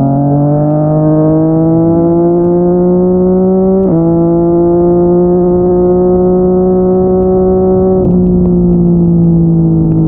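Yamaha MT-09's inline three-cylinder engine through a Yoshimura R55 slip-on exhaust, pulling under steady throttle with its pitch climbing slowly. About four seconds in, an upshift drops the pitch sharply and it climbs again. Near the end the pitch dips and then sinks slowly as the bike eases off.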